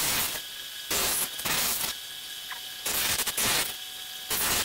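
A 1-inch belt and 5-inch disc bench sander runs with a steady motor whine. About five times, a wooden spatula is pressed to the abrasive in short strokes, each giving a loud hissing rasp.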